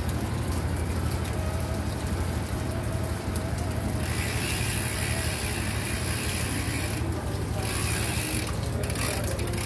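A Trek mountain bike's rear freehub ratcheting in rapid, continuous clicks as the cranks are turned by hand on a repair stand. A hiss joins in about four seconds in.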